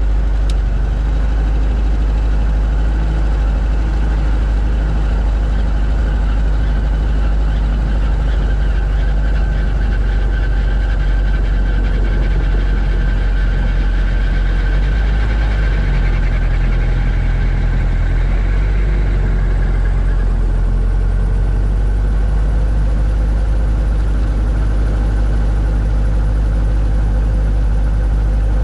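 Robinson R22 Beta II's piston engine idling steadily shortly after start-up, heard through the headset intercom. A high whine along with it fades out about two-thirds of the way through.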